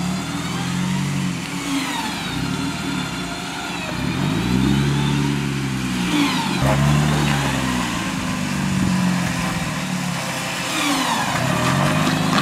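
Jeep Wrangler JK's engine revving up and easing off in several swells as the Jeep crawls over rocks under load.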